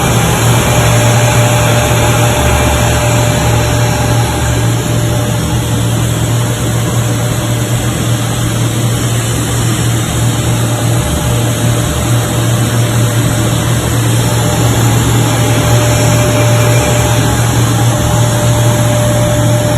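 Plastic welding rod extrusion machine running: a steady, loud machine hum with a strong low drone over constant noise, and a faint higher whine that fades in and out.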